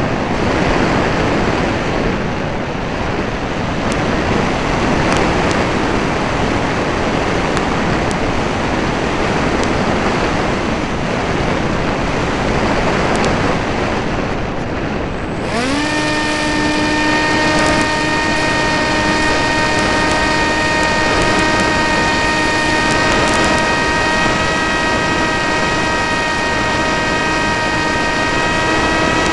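Air rushing over a radio-controlled airplane's onboard camera in flight, mixed with the plane's motor and propeller. About halfway through, a steady motor whine comes in, climbs quickly in pitch as it speeds up, then holds level.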